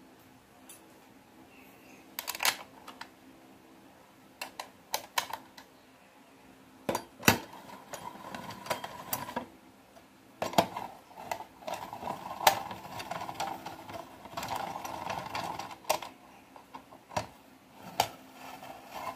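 Hand tool turning and tightening the metal mounting bolts on a motorcycle's rear frame: scattered sharp metallic clicks at first, then from about halfway a denser run of clicking and rasping as the bolt is driven home.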